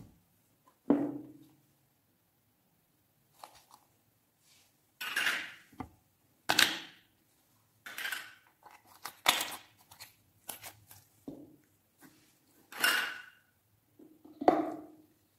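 Clear slime being squeezed and pressed by hand in a glass dish: a string of separate wet squishes, plops and crackly pops, with short silences between them.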